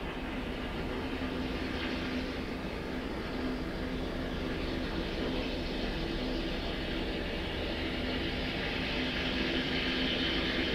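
Steady mechanical drone with a low hum, slowly growing louder.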